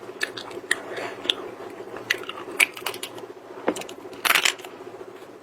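Hard-shelled shellfish being eaten: scattered small crunches and clicks of shell being cracked and bitten, with one louder crunch about four seconds in.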